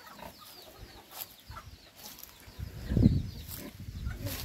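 Faint, short, high chirps from chickens around the nest, with a few light clicks and a low rumble on the microphone about three seconds in.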